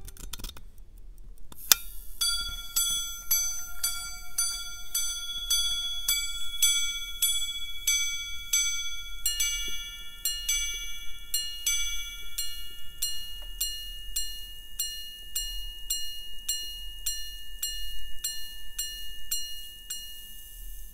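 Gold Swiss Invicta minute repeater pocket watch chiming the time on its gongs. It starts with a sharp click as the repeater is set off. Then comes a slow run of strikes on the low gong, and from about nine seconds in, strikes on both gongs with a higher ringing tone, ending just before the close.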